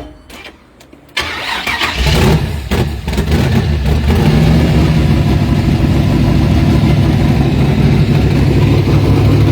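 Carbureted 434 cubic-inch V8 cranking on the starter about a second in, catching at about two seconds, then settling into a loud, steady idle with a deep low rumble.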